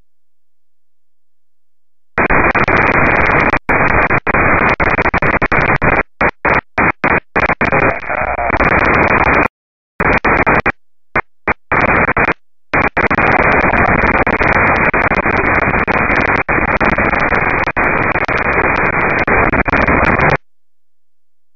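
Hiss from a software-defined radio's FM receiver on the 2-metre amateur band. About two seconds in the squelch opens on the noise and chatters open and shut, cutting the hiss in and out many times, with a longer gap about halfway, before it closes near the end.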